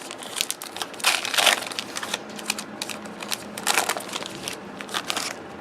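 Crinkling and rustling of trading card pack wrappers being torn open and handled, in irregular crackly bursts, the loudest about a second in and again near four seconds.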